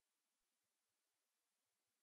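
Near silence: only a faint, even hiss.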